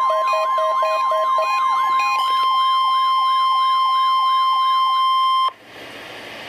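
NOAA Weather Radio's steady 1050 Hz warning alarm tone, sent during the weekly test, with a fast-repeating wailing sweep over it until about five seconds in. The tone cuts off suddenly about five and a half seconds in, leaving radio hiss.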